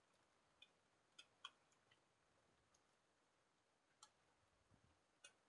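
Near silence with a handful of faint, scattered clicks as rubber bands are slipped off a small plastic box.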